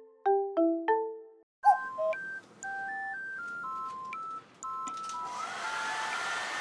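A chime jingle ends with a few struck notes that ring and die away, then a simple electronic melody of steady beep-like notes plays. About five seconds in, a hair dryer switches on, its motor whine rising to a steady pitch as the rush of air builds under the melody.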